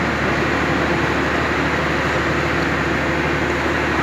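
Steady engine drone with a low hum, even and unbroken throughout.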